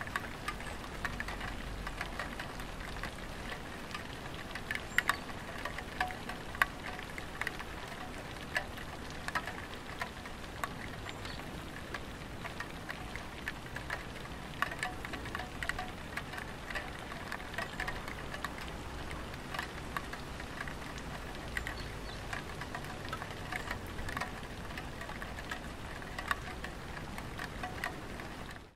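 Light rain falling on a tiled roof: a steady hiss with many scattered sharp drip ticks. It drops out briefly at the very end.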